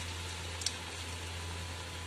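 Batter-coated baby corn deep-frying in hot oil: a steady, even sizzle, with one faint click about two-thirds of a second in.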